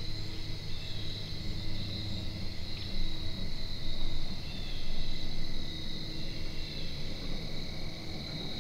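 Steady chorus of crickets, a continuous high trill, over a low rumble.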